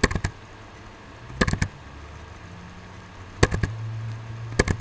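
Computer mouse double-clicking: four quick clusters of sharp clicks, roughly a second or two apart, opening one folder after another. A faint low hum runs underneath.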